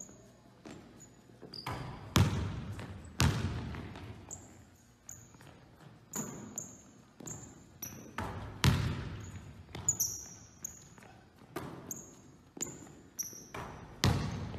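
A basketball bouncing on a hardwood gym floor, with a few loud thuds that echo through the big hall. Short high sneaker squeaks come between the bounces.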